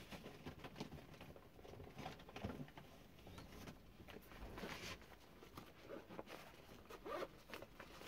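Faint rustling, shuffling and light knocks of a person moving about and handling a soft fabric case.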